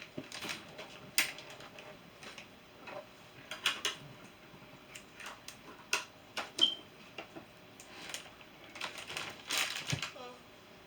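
Hands handling a new digital scale, its remote and batteries: scattered clicks, taps and rustles of plastic parts, in irregular clusters, with a brief high squeak about six and a half seconds in.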